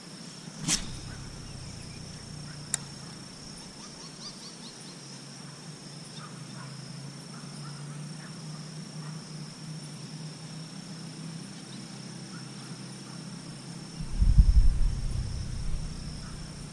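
Insects buzzing steadily, two high tones that hold unchanged. There is a sharp click just under a second in and a lighter one near three seconds. About fourteen seconds in, a loud low rumble breaks in for a couple of seconds.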